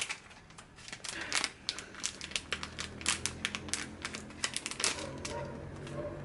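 Plastic anti-static bag crinkling and crackling as it is unwrapped and handled, a continuous run of irregular sharp crackles.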